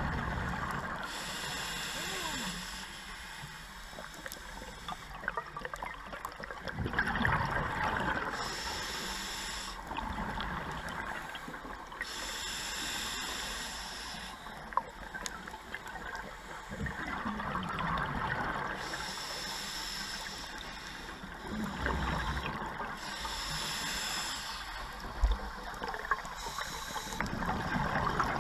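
Scuba diver breathing underwater through a regulator: a hiss on each breath and a burst of exhaust bubbles every four to five seconds, heard over a low underwater rumble.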